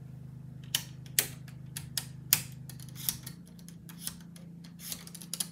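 Slide dimmer switches on a wall plate clicking as they are worked, a dozen or so sharp clicks at uneven intervals. Under them runs a steady low hum that changes about three seconds in.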